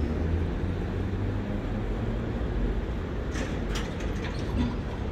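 Steady low rumble of street traffic, with a few short, high squeaks or clicks about three and a half seconds in.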